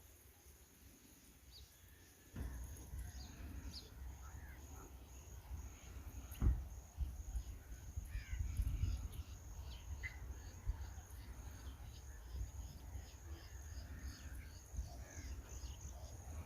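Outdoor nature sounds: birds call repeatedly over a steady high insect-like drone, and a low rumble sets in about two seconds in.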